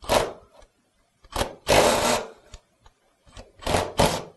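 Cordless drill running in several short bursts as it backs out the Torx screws holding a seatbelt guide inside a seat back, the longest burst near the middle.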